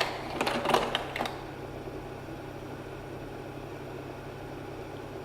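Slide projector advancing to the next slide: a short mechanical clatter in the first second or so, then the steady hum of its cooling fan.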